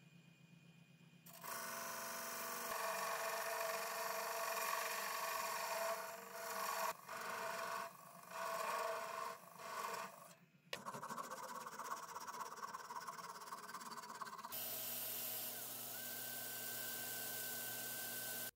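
Wood lathe spinning while a parting tool cuts into the wood at the goblet's foot, a rough scraping broken by several short pauses. Near the end a cordless drill runs a polishing pad against a wooden piece, a steadier motor sound.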